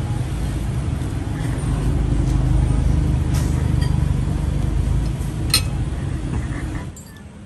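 A vehicle engine running steadily nearby, a low rumble with a hum in it. A single sharp metal clink, a spoon against a plate, comes about five and a half seconds in. The rumble cuts off shortly before the end.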